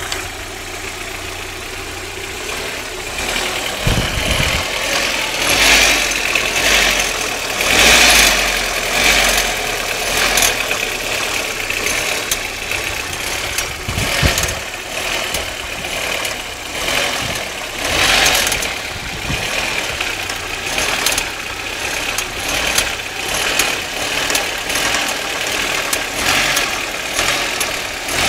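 Audi 1.8T turbocharged four-cylinder engine (AEB) running with a strange metallic clicking noise; the sound swells louder several times.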